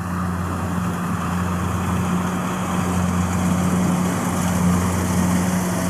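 Engine of a rice-hauling tractor running steadily as it pulls a trailer loaded with rice sacks: a low, even hum that grows a little louder partway through.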